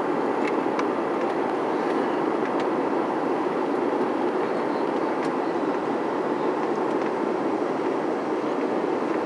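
Steady cabin noise of a jet airliner in flight, a constant rumble of engines and airflow heard from inside the cabin at a window seat.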